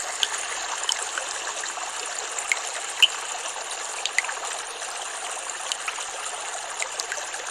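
Steady rush of flowing water, with small plinks scattered through it.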